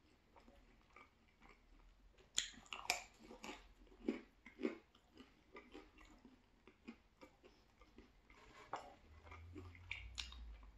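A person chewing a mouthful of thin-crust cheese pizza, with faint, irregular crunches and clicks, busiest about two to five seconds in.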